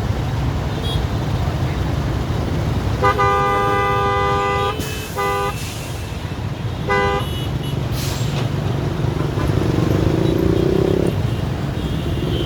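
Vehicle horn honking three times, one long blast followed by two short toots, over a steady rumble of road traffic.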